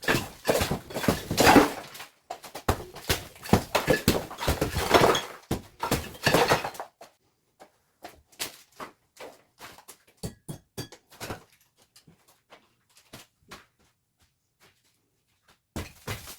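Demolition of an old mud-plastered bamboo-lattice structure: bursts of knocking and crumbling as dried clay is broken off and falls, then scattered small ticks of loose bits dropping, with the breaking starting again near the end.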